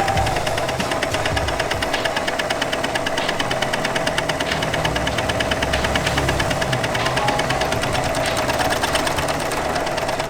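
Singer 14SH754 overlocker (serger) sewing a four-thread overlock seam at speed: a fast, even chatter of stitch strokes over a steady motor hum, cutting off suddenly near the end.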